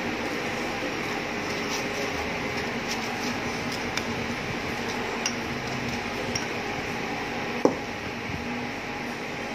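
Light clicks and clinks of a metal spoon and tongs against jars and a plastic cutting board while a waffle is spread with filling, with one louder ringing clink about three quarters of the way through. A steady machine hum runs underneath.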